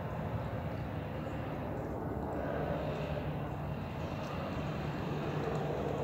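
Steady low rumble of distant engine noise that slowly swells and fades, with no goose calls.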